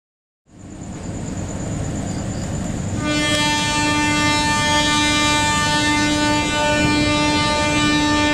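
Brief silence, then the noise of a diesel train at a station. About three seconds in, a locomotive's air horn sounds one long, steady blast lasting some six seconds.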